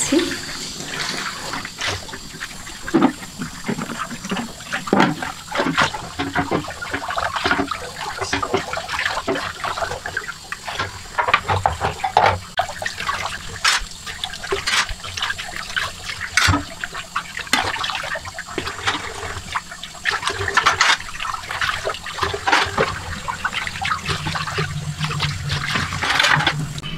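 Kitchen tap running into a stainless-steel sink while dishes and utensils are rinsed, with frequent clinks and knocks of metal and crockery against the sink.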